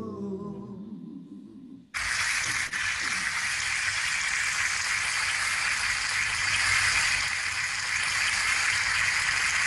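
The last of the song's backing music fades out, and about two seconds in a loud, steady hiss of noise cuts in suddenly and holds without change.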